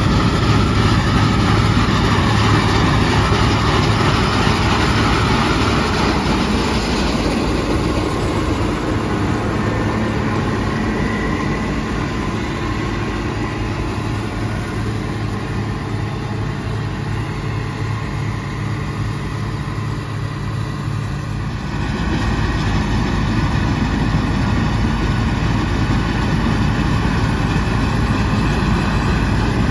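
Bizon Z056 Super combine harvester running steadily under load while harvesting grain, the drone of its SW-400 six-cylinder diesel engine mixed with the noise of the threshing machinery. The sound drops a little about seven seconds in and comes back up a little after twenty seconds.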